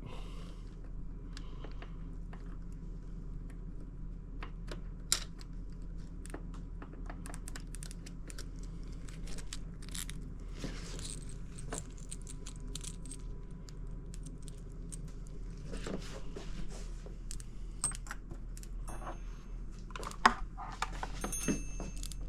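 Scattered small clicks and metallic clinks of parts and tools being handled while the throttle lever is worked off the outboard's linkage, over a low steady hum.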